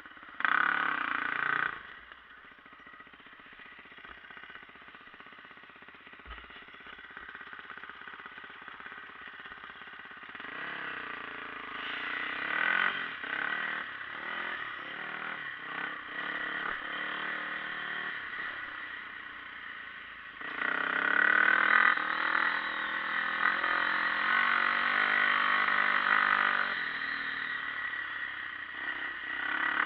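Dirt bike engine running under throttle, its pitch rising and falling as the rider speeds up and slows on the two-track. A short loud burst about half a second in, a quieter stretch for several seconds, then the engine grows louder, loudest from about twenty seconds in.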